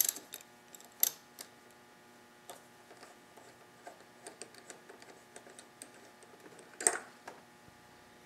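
Socket-wrench ratchet clicking at the start as the spark plug is loosened on a Tecumseh TVS105 L-head engine, then scattered faint metallic ticks and small clicks as the plug is unscrewed and drawn out, with a short louder clatter about seven seconds in.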